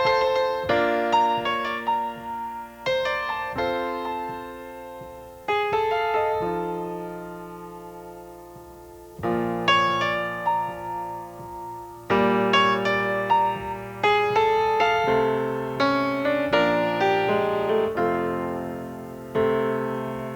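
Solo piano playing a slow, gentle piece, chords struck and left to ring. About five and a half seconds in, one chord is left to fade for several seconds before the playing picks up again around nine seconds.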